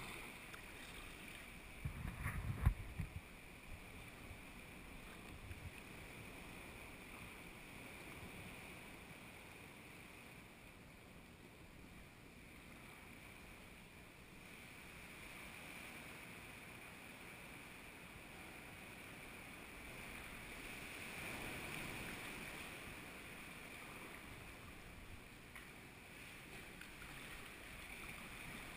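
Sea kayak being paddled on calm water: faint steady swishing and lapping of water, with a few low knocks about two seconds in and the water noise swelling slightly past twenty seconds.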